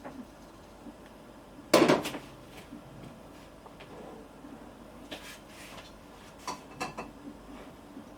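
Dishes and cutlery handled in a kitchen: one loud clatter about two seconds in, then a few lighter clinks and knocks.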